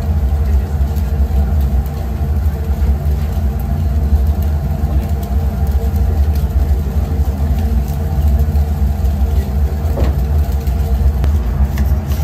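Steady low mechanical rumble, like a running engine, with a few faint clicks.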